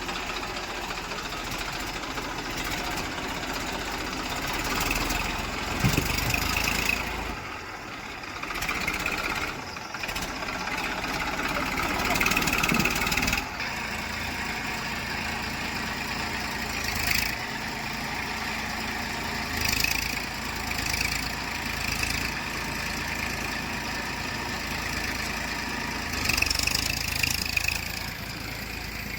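Diesel engine of a JCB 3DX backhoe loader running as it works, growing louder for a second or two several times.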